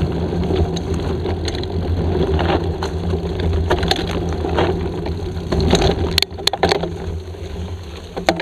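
Mountain bike ridden fast down a dirt forest trail: a steady rumble of wind and tyres with sharp knocks and clicks as the bike rattles over the ground, a quick cluster of them about six seconds in.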